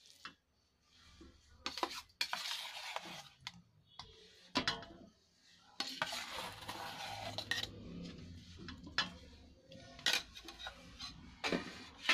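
A spoon scraping and knocking against a stainless steel bowl as soft mawa (khoa) is spooned onto ground flaxseed, with several sharp clinks and two longer stretches of scraping.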